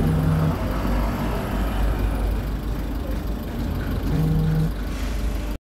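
Steady low rumble of road traffic, with two short low buzzes about four seconds apart, each lasting about half a second. The sound cuts off suddenly near the end.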